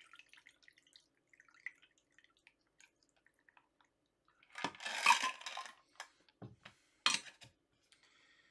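A mixed drink poured over ice into a glass: faint drips and ticks, then a short splashing pour about five seconds in, followed by two sharp clinks.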